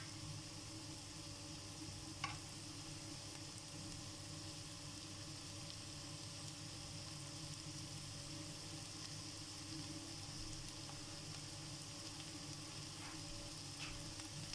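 Chicken liver with onions and green peppers sizzling steadily in a frying pan, with a sharp click about two seconds in and a fainter one near the end.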